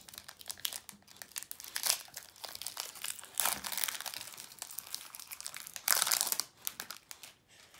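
Foil booster-pack wrapper crinkling and tearing as a Pokémon card pack is torn open, in irregular crackly bursts with the loudest about 6 s in.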